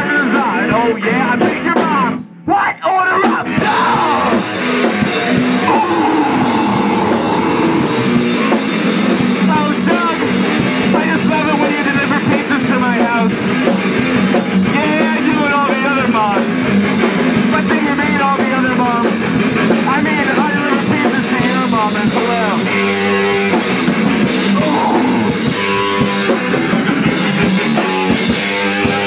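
Live rock band playing loudly, with electric guitar and keyboard and a voice singing over them. The sound cuts out briefly about two seconds in, then the song carries on.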